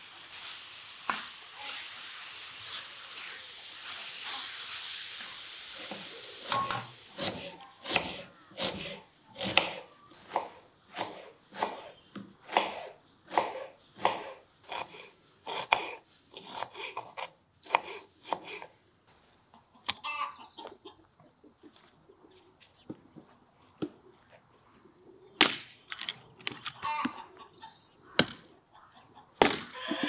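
Beef cubes sizzling as they are stirred in a large cast-iron pan, then a kitchen knife chopping onion on a wooden board in quick even strokes, about two a second. Near the end come a few single, louder strikes of a hatchet splitting firewood on a stump.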